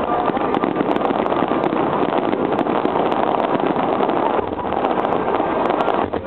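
Fireworks display heard from afar: a dense, continuous crackling from many shells bursting and glittering, easing briefly about four seconds in.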